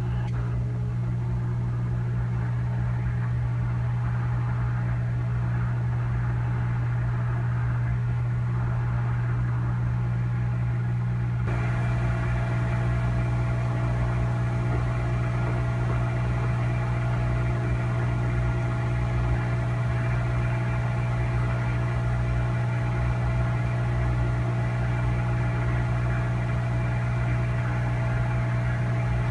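Hot-air rework station blowing on a logic-board chip, a steady low hum, to reflow the solder under a replacement Ethernet controller IC. About twelve seconds in a higher steady whine joins the hum.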